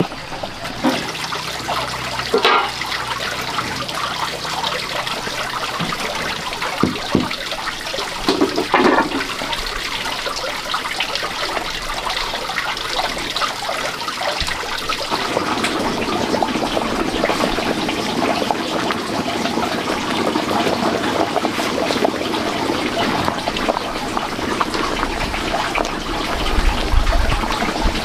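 Wet bran mash sloshing and churning as a wooden paddle stirs it in a large metal pot. The sloshing grows louder and fuller about halfway through.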